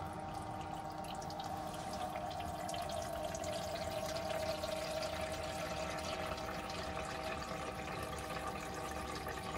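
Water running steadily from the camper van's kitchen tap into the sink, with the steady hum of the small electric water pump that feeds the tap.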